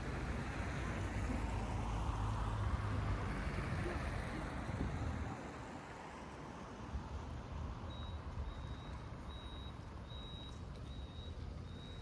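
City street traffic: a vehicle passes close by and fades about five seconds in. From about eight seconds in, a short, high electronic beep repeats about one and a half times a second.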